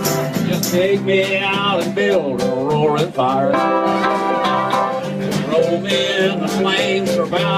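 Live country band playing an instrumental break between verses: strummed acoustic guitars under a bending, wavering lead line that comes from a harmonica.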